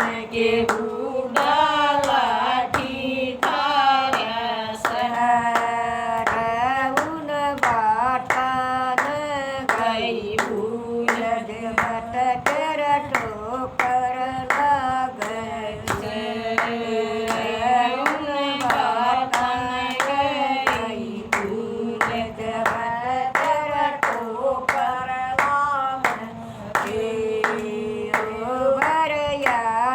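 A woman singing a Haryanvi bhajan (folk devotional song) with hand clapping keeping a steady beat.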